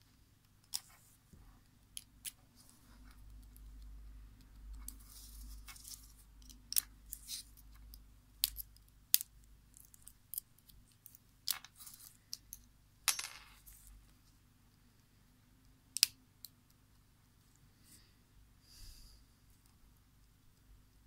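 Small hand tools clicking and scraping against the plastic housing and parts of a Microsoft LifeCam Cinema webcam as it is taken apart. Scattered sharp clicks, with a longer scrape about thirteen seconds in and a loud single click about three seconds later, over soft handling noise early on.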